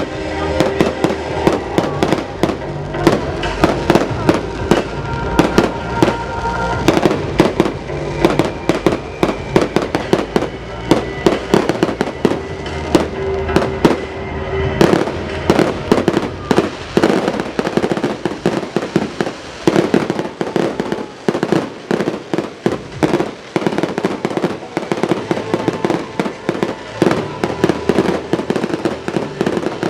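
Fireworks display: a rapid, continuous series of shell bursts and bangs with crackle, set to loud show music.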